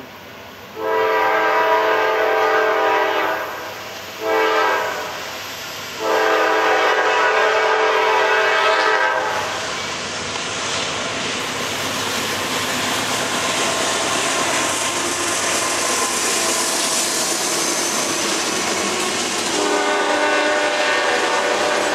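Norfolk Southern freight train's lead GE C40-9W diesel locomotive blowing its horn for a grade crossing: a long blast, a short one, then another long one. The locomotives and freight cars then pass close by with a steady rumble and clatter of wheels on rail. The horn sounds again briefly near the end.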